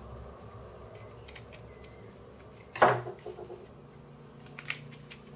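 3D-printed plastic puzzle pieces being handled on a wooden tabletop: one sharp clack about three seconds in, then a few light clicks.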